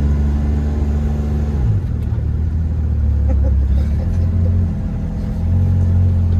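Minivan engine and road noise heard from inside the cabin while driving. The engine note shifts down about two seconds in, dips briefly, and then comes back louder near the end.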